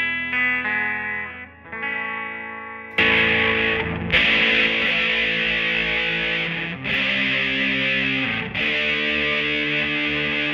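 Electric guitar played through a Bugera V22 tube amp with a vintage Rola Alnico 5 12-inch speaker. It starts with ringing single notes, and about three seconds in switches to heavily distorted chords that stop briefly a few times.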